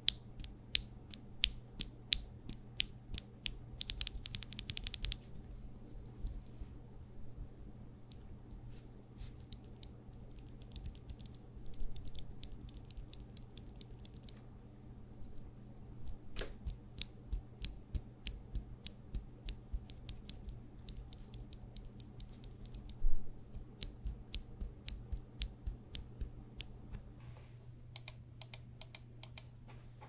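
A loose Akko Starfish linear keyboard switch pressed repeatedly by hand, its stem clacking at the bottom and top of each stroke in irregular runs of a few clicks a second, with short pauses between runs.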